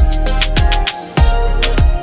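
Background music with a steady beat: deep electronic kick drums that drop in pitch, crisp hi-hat-like hits and held synth tones.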